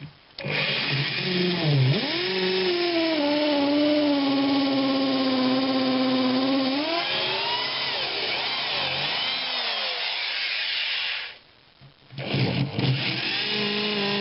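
Electric drill boring a mounting hole, its motor pitch wavering as the bit loads. It stops about 11 seconds in and starts again a second later.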